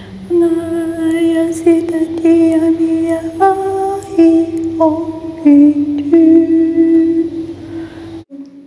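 A woman singing wordless 'light language' tones: a string of long held notes, stepping between a few pitches and settling lower about halfway through. The sound cuts off abruptly near the end.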